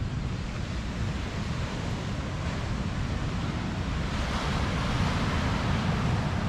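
Ocean surf breaking and washing up a sandy beach, a steady hiss that swells a little past the middle, with wind rumbling on the microphone.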